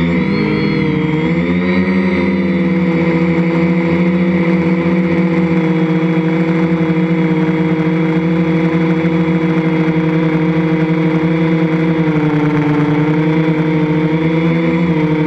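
Electric motors and propellers of a 3DR Iris quadcopter, heard from its onboard camera: a loud, steady multi-tone hum. The pitch shifts in the first two seconds as it lifts off from the group and climbs, then holds steady, dipping briefly near the end.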